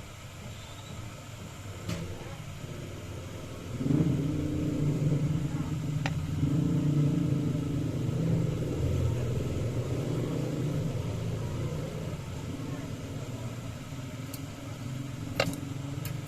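A steady low mechanical hum that starts abruptly about four seconds in, with a few sharp clicks near the end.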